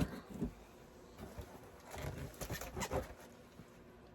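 A few soft knocks and handling noises, scattered and irregular, as a wrapped present is handled and opened.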